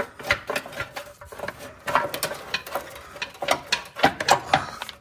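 Aluminium oil pan of a BMW E46 330Ci clanking and scraping against metal as it is worked out from under the engine, a rapid, irregular run of knocks and clicks.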